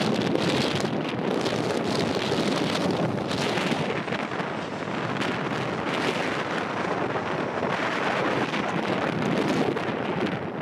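Wind buffeting the microphone, over the steady rushing noise of a Boeing 737-800's CFM56 jet engines on final approach to land.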